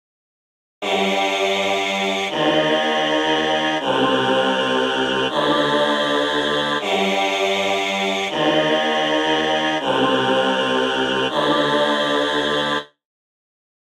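Music: a run of held chords, each changing about every second and a half, starting about a second in and cutting off abruptly near the end, with silence either side.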